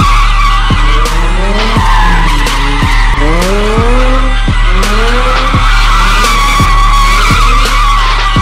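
A pickup truck spinning donuts: its tyres screech continuously while the engine revs up again and again in rising surges.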